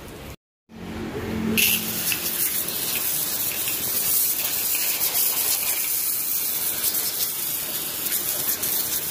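High-pressure water jet from a pressure washer spraying steadily, a continuous hiss; a brief cut to silence just under a second in, after which the spray resumes.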